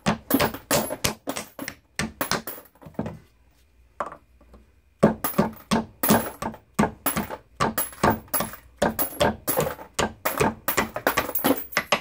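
Rubber mallet tapping a drilled wooden board that holds .223/5.56 brass cases, with quick repeated knocks and a break of about two seconds a few seconds in. The cases drop out and clink into a box below.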